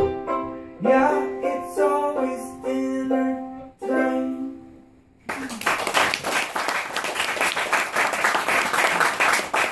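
Ukulele playing the closing chords of a song, the last chord ringing out and fading. About five seconds in, the audience breaks into applause that continues.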